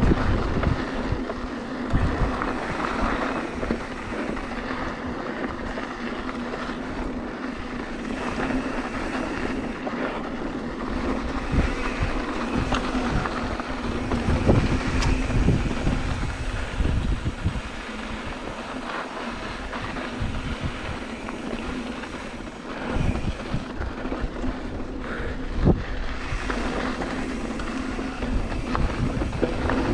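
Wind buffeting a GoPro's microphone while a 2016 Ibis Mojo HD3 mountain bike rolls down dirt singletrack, its tyres running over the trail with a steady hum and occasional sharp knocks and rattles over bumps.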